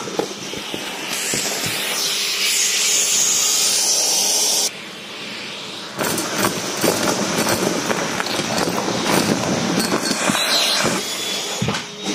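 Vacuum cleaner with a metal wand sucking debris off a rug. A loud rushing hiss of air for the first few seconds cuts off suddenly, then the wand crackles and rattles as confetti, sequins, buttons and grit are drawn up the metal tube.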